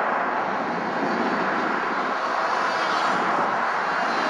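Electric R/C airplane in flight, its brushless motor spinning a small 5x4.5 propeller with a steady whirring noise.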